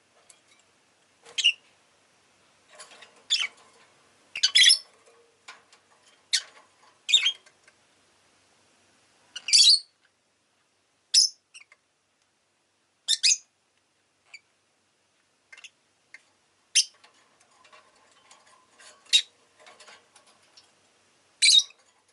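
Rosy-faced lovebird giving short, sharp, shrill chirps, one every second or two at irregular intervals.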